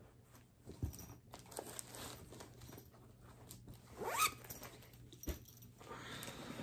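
Clear plastic project bag and paper chart being handled: soft rustling and small knocks, with a short rising zip about four seconds in.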